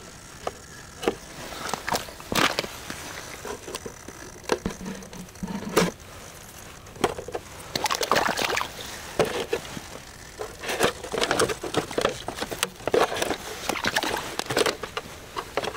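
Hands handling a mud-caked RC truck: scattered clicks, scrapes and wet squelches from its plastic body and the mud around it.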